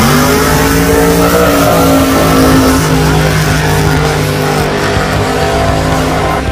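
Drag-racing car launching off the starting line at full throttle and running down the strip, its engine note jumping up sharply at the launch and then holding a fairly steady, loud note.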